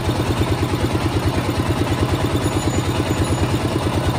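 Small engine driving a sugarcane juice roller press, idling with a steady, fast, even beat.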